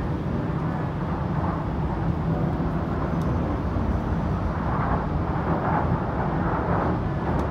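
Steady rumble of a passenger train running over a steel truss bridge, heard from inside the carriage, with a lighter hiss swelling in the second half.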